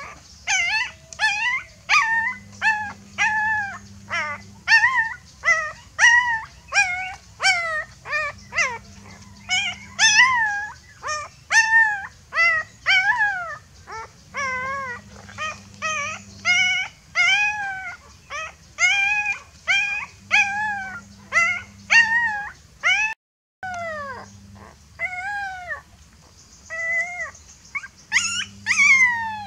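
A very young puppy crying over and over in high whining yelps, about two a second, each cry rising then falling in pitch: calling for its mother. The crying cuts out briefly about two-thirds of the way through.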